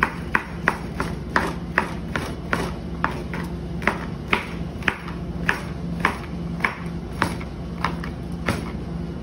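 Chef's knife dicing eggplant on a plastic cutting board: a steady run of sharp chops, about two to three a second, the blade striking the board each time.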